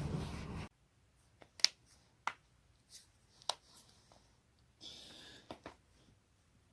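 Joint cracking: a run of sharp, single pops about half a second apart, the loudest near the start, then a short rustle with two more pops near the end. A louder stretch of other sound at the very start cuts off abruptly before the pops begin.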